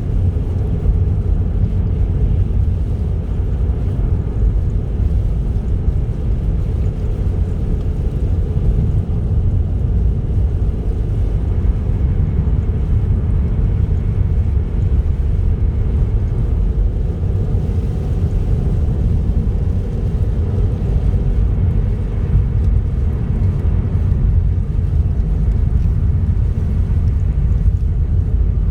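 Car driving along a highway: a steady low rumble of engine and tyre noise.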